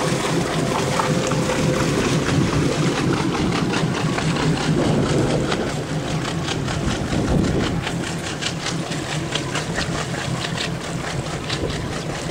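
A Downeast Boats Northern Bay 36 cruiser's engine running at low speed, a steady low rumble, under a haze of water and wind noise.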